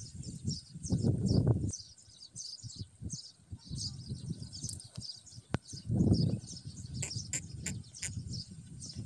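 Small birds chirping over and over in quick, short notes, with several bursts of low rumble on the microphone.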